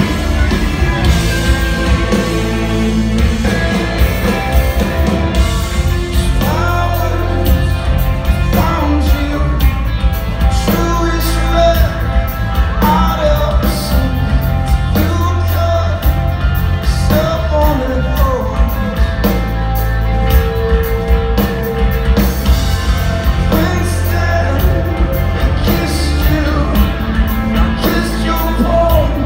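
Rock band playing live: a singer over electric guitars, drums and heavy bass, heard loud from within the crowd in a large hall.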